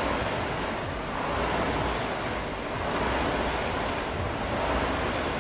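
Air rowing machine's fan flywheel whooshing under hard rowing, the rush swelling with each pull about every one and a half seconds.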